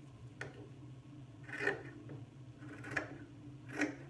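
Fabric scissors snipping into a knit sweater: three short, scratchy cuts about a second apart, after a light click.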